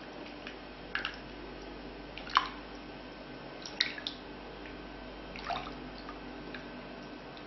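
Silicone spatula stirring melted butter and dark chocolate in a stainless steel saucepan: soft liquid squishing with a few light clicks of the spatula against the pan, the sharpest about two and a half seconds in.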